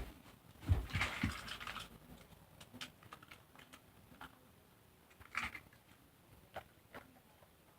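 Light plastic clicks and knocks from toy trains being handled, with a short scraping rustle about a second in and another near the middle.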